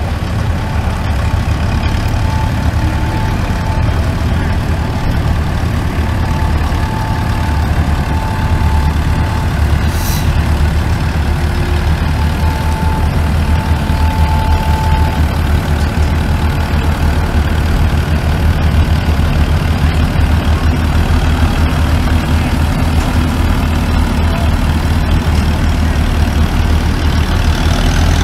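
Antique tractor engine running steadily at low speed under load as it pulls a weight-transfer sled in a tractor pull: a constant deep engine drone.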